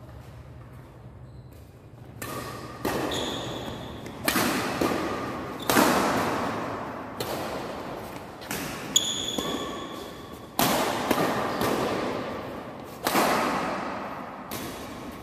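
Badminton rackets striking a shuttlecock in a fast doubles rally, sharp hits about every second that ring in the hall, with a couple of brief high squeaks of shoes on the court.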